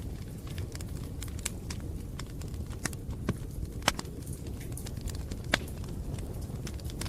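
Wood fire burning: irregular crackles and pops over a steady low rumble, with a couple of louder pops around four and five and a half seconds in.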